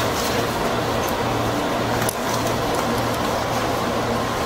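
Steady hum and hiss of a JR East 205 series electric train standing at a station with its equipment running, heard from the cab, with a low hum that pulses a little faster than once a second.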